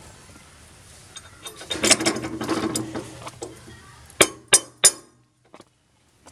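Steel rotary tiller blades scraping and clinking against the rotor flange of a VST Shakti 130DI power tiller as they are fitted by hand. Three sharp metal clicks come close together about four seconds in.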